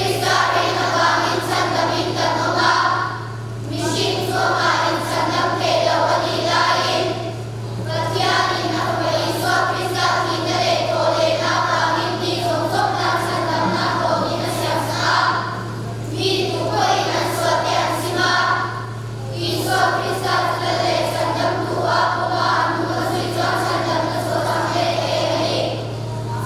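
Children's choir singing together in phrases separated by short pauses for breath, over a steady low hum.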